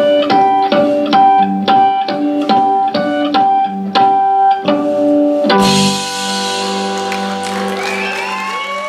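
Live blues band playing the closing bars of a shuffle: electric cigar box guitar and keyboard over a steady drum beat, landing on a final chord with a cymbal crash about five and a half seconds in that is left ringing.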